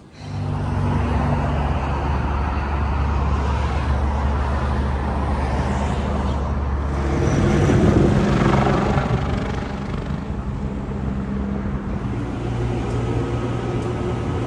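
A TRAX light-rail train running, heard from inside the car: a steady low motor hum over rumbling wheel and rail noise. The rumble grows louder about halfway through, and a faint rising whine starts near the end.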